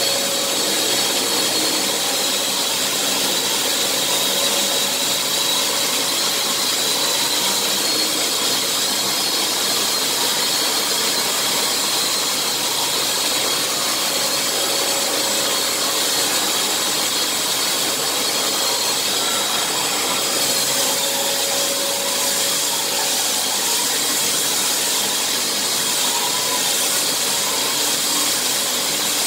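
Makita DSL801Z 18 V cordless long-reach drywall sander running steadily with its round pad pressed against plaster, sanding the ceiling and then the wall. A Makita VC2512L extraction vacuum hooked to its hose runs underneath as a steady whir.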